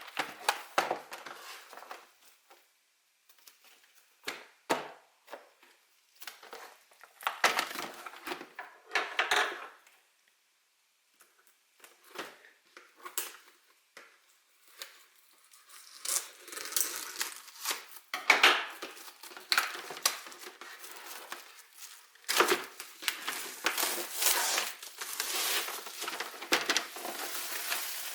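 A Pokémon card collection box and its packaging being handled and opened: irregular crinkling, tearing and scraping. There is a short lull about ten seconds in, and the handling is busier through the second half.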